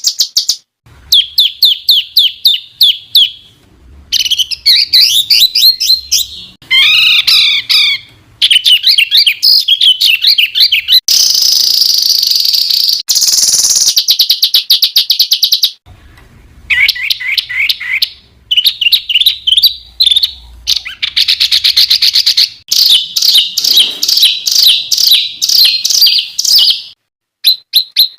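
Mixed songbird song from a masteran tutor recording, spliced from several birds: fast high trills and rapid repeated notes in bursts of one to three seconds with short pauses between. A harsher, buzzy stretch comes about midway.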